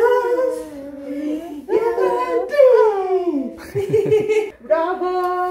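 A woman's wordless sing-song vocalizing in long drawn-out notes that slide up and down, with a baby laughing.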